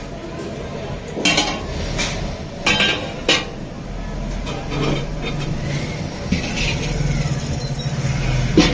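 Large aluminium cooking pots and a metal ladle clanking as they are handled and set down: four sharp knocks in the first three and a half seconds, another near the end, over a steady low hum.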